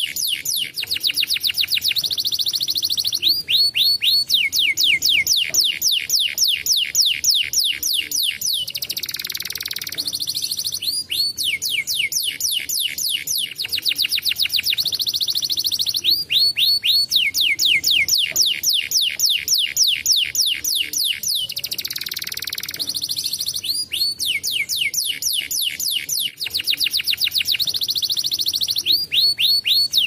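Domestic canary singing long rolling trills of rapid, falling notes, broken by short hissing passages; the same sequence of trills comes round again about every twelve seconds.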